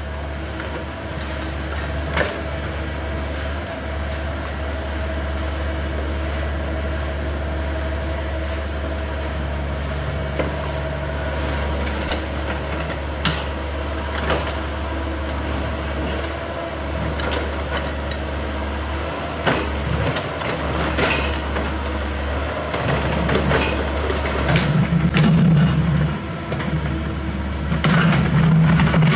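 CAT 305.5E2 mini excavator's diesel engine running steadily under digging load as the bucket cuts into a dirt-and-rock bank, with scattered sharp knocks and scrapes of the bucket on stones. The engine grows louder and rougher over the last several seconds.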